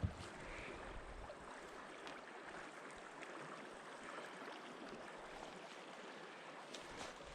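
Steady rush of river current, with a few faint clicks near the end.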